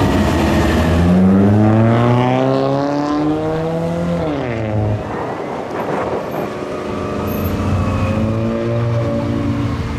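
Pierce Velocity aerial ladder truck's diesel engine accelerating away. Its pitch climbs for about three seconds, drops at a gear shift about four seconds in, and climbs again near the end.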